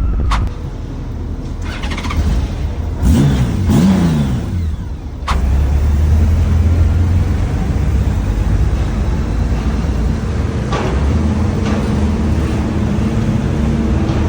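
Motorcycle engine revving up and down twice, then a sharp click and the engine running steadily under way.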